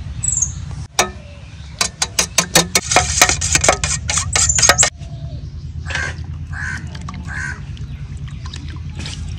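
Egg being beaten briskly with a flat metal utensil in a stainless-steel bowl: a fast run of sharp clinks, about five or six a second, for some three seconds, then stopping.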